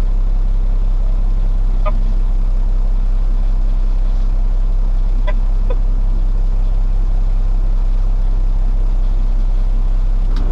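Freightliner truck's diesel engine running at a steady low drone while hauling rock, with a few faint short blips over it.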